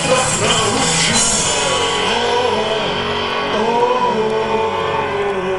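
Punk rock band playing live: electric guitars and drums with a melodic line gliding up and down, in a stretch without sung words.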